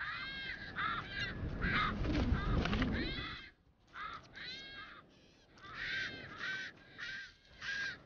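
Striated caracaras giving a rapid series of calls, each rising and falling in pitch. A low rumbling noise runs under them for the first three seconds or so.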